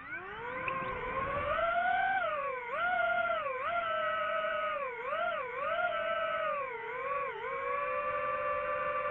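DJI FPV drone's motors and propellers spinning up on takeoff, a whine rising steeply in pitch, then dipping and climbing back about six times as the throttle changes in flight, settling to a steady whine near the end.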